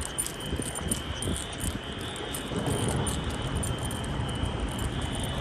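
Wheelock Exceeder fire alarm horn sounding a steady, continuous high tone, over a low rumble of traffic.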